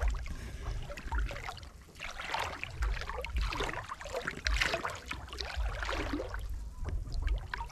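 Water sloshing and splashing in irregular surges, with a low rumble underneath.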